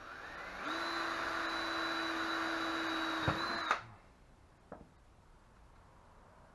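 Cordless drill spinning up with a rising whine, then running steadily for about three seconds as it bores a hole through PVC pipe. A sharp click comes just before the motor stops.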